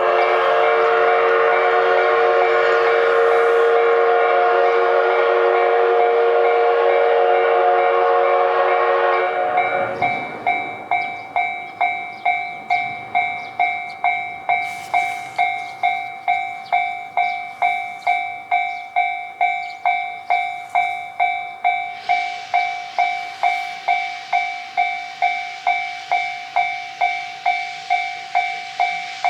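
Steam whistle of a C58 steam locomotive blowing one long, steady, many-toned blast for about nine seconds as the train departs. Then a Japanese level-crossing alarm rings steadily, about 1.7 strikes a second, its tone turning brighter about 22 seconds in.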